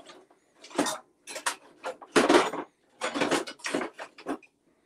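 Kitchen dishes and utensils being handled: a series of short clinks, knocks and scrapes, the loudest a little after two seconds in.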